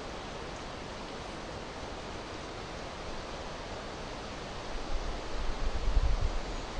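Steady outdoor hiss; from about two-thirds of the way in, gusts of wind start rumbling on the microphone.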